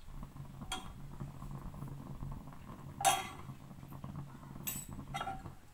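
A steel spoon clinks against a metal pot as the watery dal is stirred: a few sharp clinks, the loudest about three seconds in, over a low steady hum.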